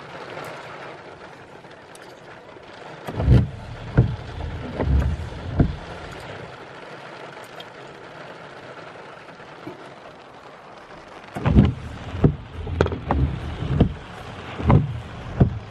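Rain and wind outside a car, heard from inside the cabin as a steady rush. Twice it is broken by a run of heavy, short, low thuds: a few seconds in, and again near the end.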